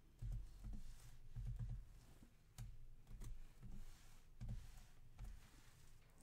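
Faint computer keyboard keystrokes and a few mouse clicks, irregular soft taps as a password is typed in.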